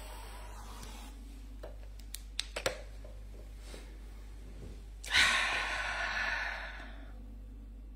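A person's long exhaled sigh about five seconds in, starting sharply and fading over about two seconds, after a few faint clicks, over a steady low hum.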